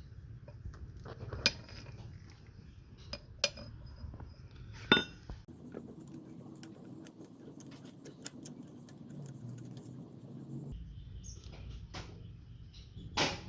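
Loose steel parts of an old Wilton vise clinking and briefly ringing as they are handled and set down, with four sharper clinks among lighter ticks.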